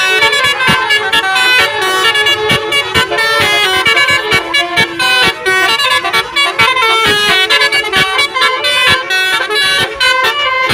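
Bus Basuri telolet horn playing a tune, its several tones stepping quickly from note to note in a steady rhythm.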